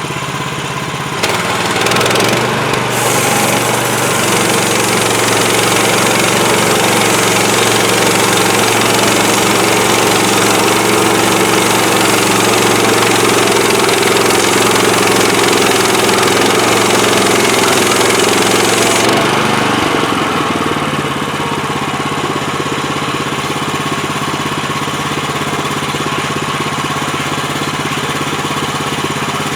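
Gas engine of a portable bandsaw sawmill running steadily. About a second in it comes under load and a loud hissing cut joins it as the band blade goes through the log. The cutting noise stops about 19 s in and the engine drops back to a lighter, steady run.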